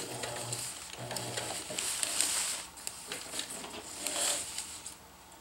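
Silicone-coated nylon tarp fabric rustling and sliding as it is handled at the sewing machine, in soft irregular swells that quiet down near the end.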